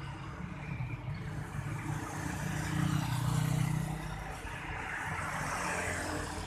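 Road traffic, with a motorcycle engine growing louder as it rides past, loudest about three seconds in.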